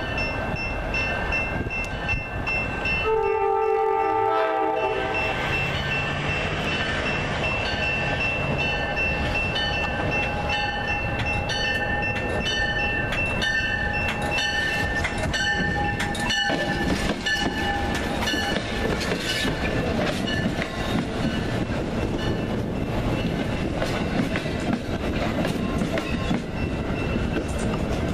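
Amtrak Downeaster passenger train passing a grade crossing. Its horn blows about three seconds in, dropping in pitch as it goes by. Crossing bells ring over the rumble and clatter of the wheels as the cab car and passenger coaches roll past.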